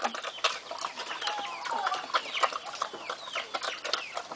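A flock of chickens clucking, with many short calls overlapping throughout.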